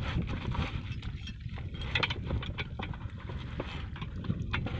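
Small single-cylinder diesel pump-set engine running, a low uneven thumping with scattered knocks and clatter over it.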